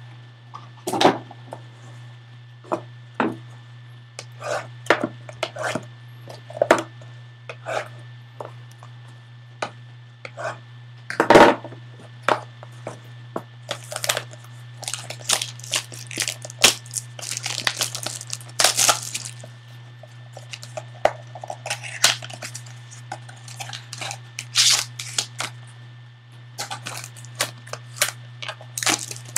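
A foil-wrapped trading card pack being torn open and the cards handled: foil tearing and crinkling, with scattered clicks and taps of cardboard and cards and one louder knock about a third of the way in. A steady low hum runs underneath.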